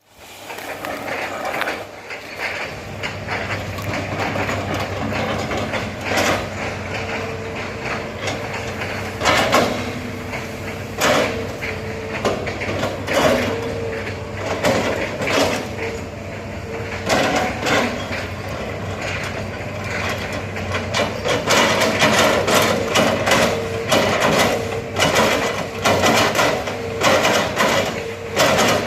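Hitachi excavator working, its diesel engine running steadily under many irregular metallic clanks and knocks that come thicker toward the end.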